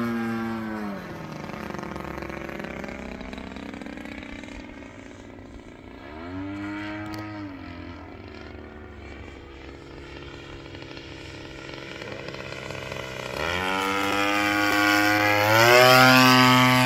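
Radio-controlled aerobatic model airplane's engine in flight: throttled back about a second in, a short burst of throttle midway, then opened up again from about three seconds before the end and loudest as the plane passes close near the end.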